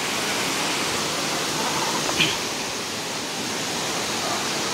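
Waterfall rushing steadily as water cascades over rock ledges.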